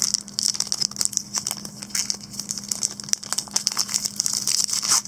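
Trading cards and foil pack wrappers being handled: a rapid, uneven run of small clicks and crinkles as cards are flicked through and packs moved.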